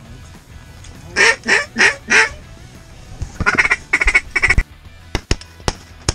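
Duck call blown in short quacks: four loud ones, then three more after a brief pause. Near the end come several sharp shotgun cracks as the hunters fire.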